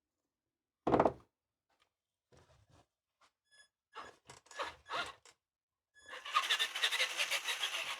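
A single thunk about a second in, then a few short clicks and a brief electronic beep from the newly installed ESC, then the RC monster truck's electric motor and drivetrain running for about two seconds near the end: the new ESC is working.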